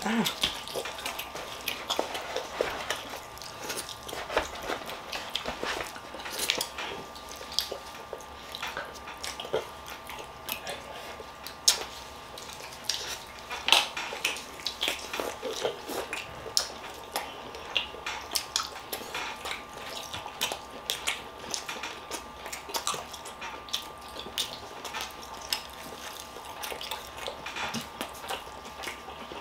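Boiled crab legs and lobster shells being cracked and picked apart by gloved hands, with chewing and the odd clink of cutlery: a steady run of sharp crackles and clicks throughout, over a faint steady hum.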